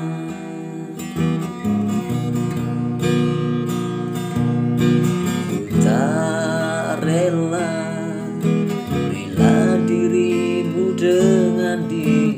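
Background music: a pop song with strummed acoustic guitar and a wavering melody line over it.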